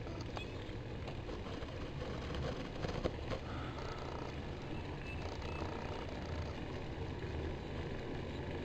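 Full-suspension mountain bike being ridden on a dirt trail: a steady low rumble of tyres rolling over the ground, with a few sharp clicks and rattles, mostly near the start and about three seconds in.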